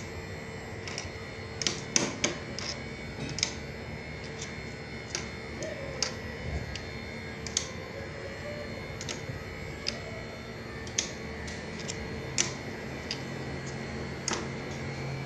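Irregular sharp metal clicks of pliers and an Allen key working the brass service valve of a split air conditioner's outdoor unit while closing it off to pump the refrigerant gas down. Under them is the steady hum of the running unit, with a lower hum joining about 12 seconds in.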